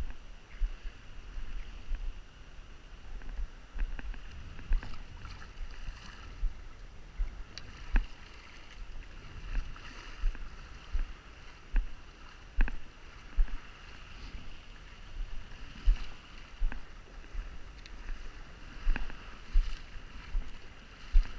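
Shallow water sloshing and splashing around a wading angler's legs and landing net, with irregular low bumps about every second.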